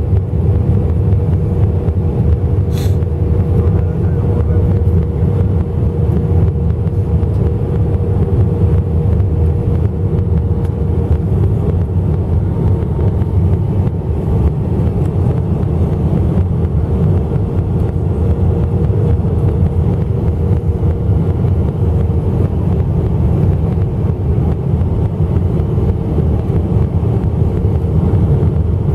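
Cabin noise of an Airbus A319 on final approach, heard from a window seat over the wing: a loud, steady low rumble of engines and rushing air. A faint steady hum at one pitch runs through it and fades about eleven seconds in.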